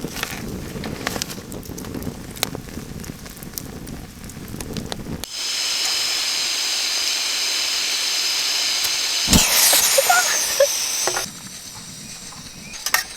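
Campfire crackling with scattered pops. About five seconds in, a louder steady hiss cuts in for about six seconds, with one thump in the middle, then stops suddenly and the crackling resumes.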